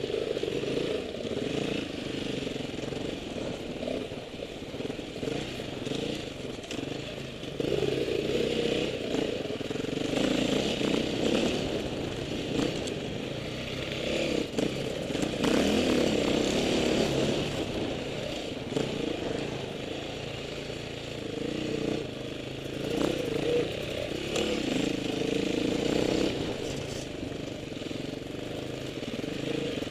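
Off-road motorcycle engine running under way, revving up and easing off again and again, with rushing wind noise over it.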